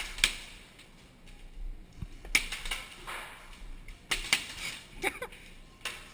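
Scattered sharp snaps of airsoft gunfire, single and in quick pairs, with a low hiss between them.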